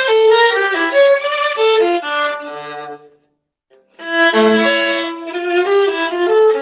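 Solo viola playing a melody through a crunchy-sounding microphone: a phrase of changing bowed notes, a pause of just under a second a little past the middle, then a new phrase.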